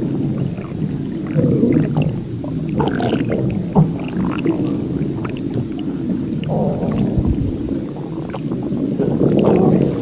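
Human stomach growling and gurgling: a continuous low rumble full of small squelches and pops. It swells louder about two seconds in and again near the end, with one sharp pop around the middle.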